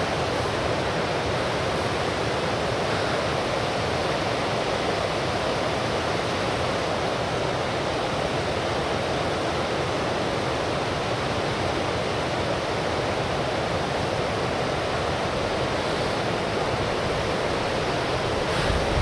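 Mountain stream rushing steadily, an even hiss of running water.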